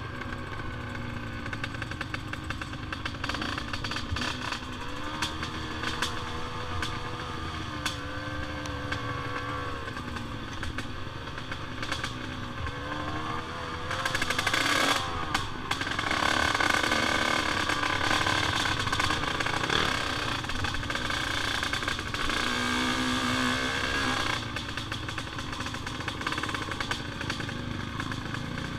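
ATV engine running while the quad is ridden along a dirt trail, its pitch rising and falling with the throttle. About halfway through it revs higher and louder for roughly ten seconds, then settles back.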